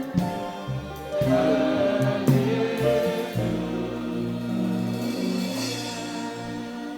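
Slow gospel worship music: voices singing over sustained chords.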